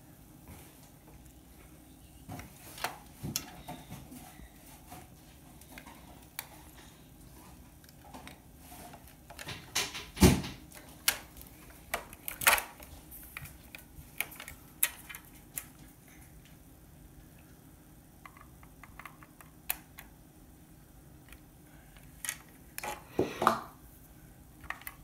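Scattered clinks and knocks of dishes and utensils being handled, louder around the middle and again near the end.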